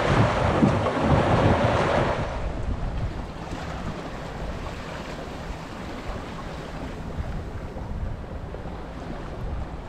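Wind buffeting the microphone and water rushing along the hull of a sailboat under sail, with no engine running. Loud for about the first two seconds, then a quieter, steady wash of wind and water.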